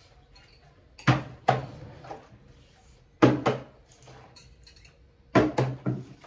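Plastic water bottle flipped and landing on a tabletop again and again. The thuds mostly come in quick pairs as it hits and tips over, about every two seconds.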